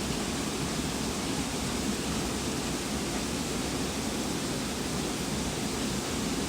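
Steady, dense din of a large hall of screw-making machines running at full production.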